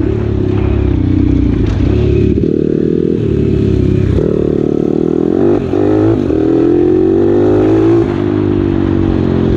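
Pit bike engine running while riding, its pitch rising and falling with the throttle; it drops out briefly about halfway through, then climbs again as the bike picks up speed.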